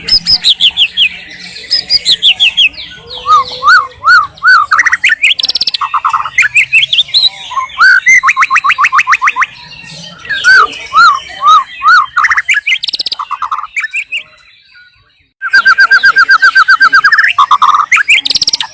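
White-rumped shama singing: a loud, varied song of whistled phrases, repeated arched notes and fast trills, with a short pause about fourteen seconds in before a rapid run of notes.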